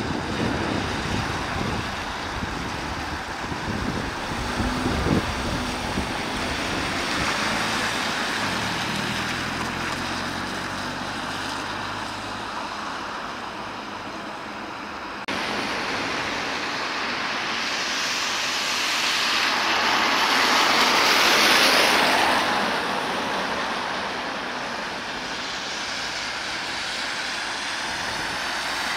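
Road traffic going by, engine and tyre noise. The sound changes abruptly about halfway, then one vehicle swells past, loudest about two-thirds of the way through and fading after. No siren is heard.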